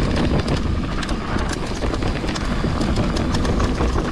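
Mountain bike riding down a trail: a continuous dense rattling and knocking from the bike and tyres over rough ground, with wind rumbling on the microphone.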